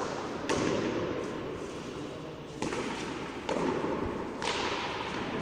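Frontón ball being struck and rebounding off the court walls: four sharp smacks roughly a second apart, each ringing out in the echoing court.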